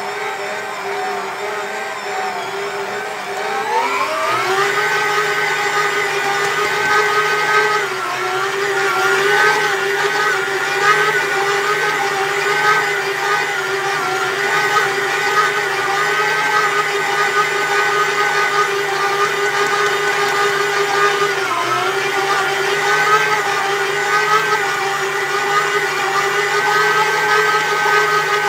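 Karaca Mastermaid Chef Pro 1750 W stand mixer's motor running as its dough hook kneads mantı dough: a steady whine that rises in pitch about three to four seconds in and then holds at the higher speed, dipping briefly twice.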